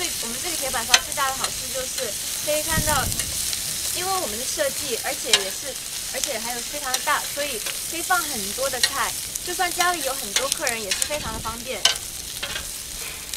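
Sliced bell peppers and carrots sizzling on a hot plancha's flat steel cooking plate. They are stirred and turned with two metal spatulas, which scrape and click against the plate again and again.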